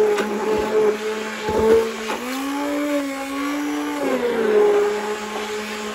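Sunbeam immersion blender running in a bowl of hot water and soft soap chunks, its motor hum steady and shifting in pitch between about two and four seconds in. A few brief knocks come in the first two seconds.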